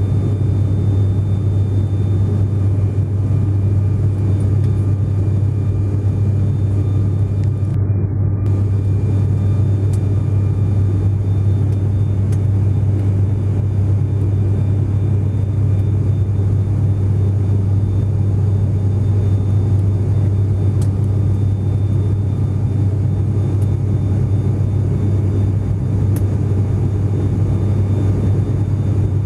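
Steady low drone of a passenger plane in flight, engine and rushing-air noise heard inside the cabin.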